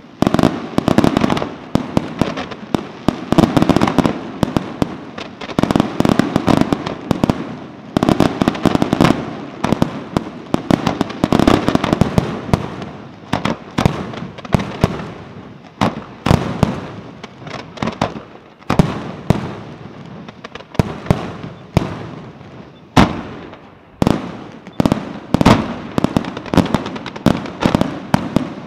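Fireworks display: a dense, unbroken barrage of aerial shell bursts and low-fired mines, several sharp bangs a second with a noisy wash between them, and one especially sharp report near the end.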